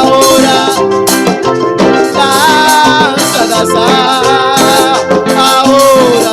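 Instrumental passage of a salsa-style song: maracas shaking over a steady beat, with a held melody line on top.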